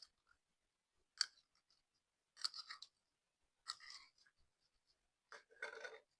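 Slime being pressed and squished by hand, giving quiet short bursts of sticky crackling and popping: a sharp pop a little over a second in, then three crackly squishes about a second and a half apart.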